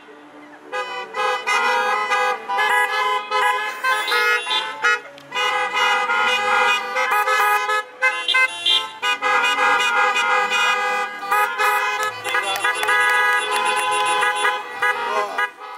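Many car horns honking together in long, overlapping blasts, breaking off briefly a few times and starting again on cue from a conductor.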